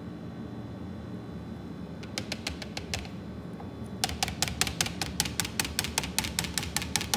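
Fast run of light metallic clicks, about seven a second, from the stainless wire cooling rack under a glazed cake being tapped to shed excess glaze, with a few scattered clicks first, over a low steady hum.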